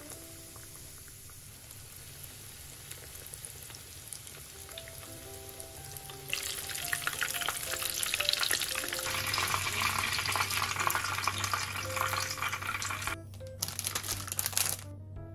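Food frying in hot oil: a faint sizzle at first, then loud crackling sizzling from about six seconds in, which breaks briefly and stops abruptly near the end. Background music plays throughout.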